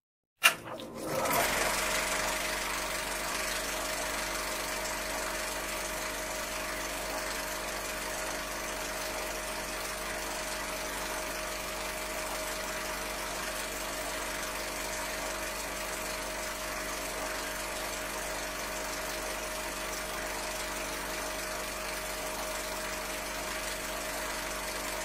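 A film projector runs with a steady mechanical whir and hiss over a constant hum. It starts with a click about half a second in and cuts off abruptly at the end.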